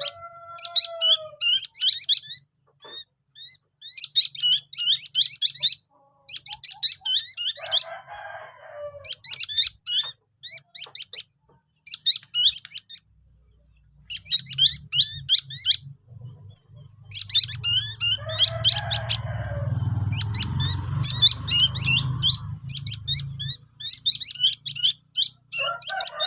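Ruyuk-ruyuk chicks chirping in repeated bursts of rapid, very high-pitched cheeps. A rooster's crow trails off in the first second or so, and a low rumble runs through the middle.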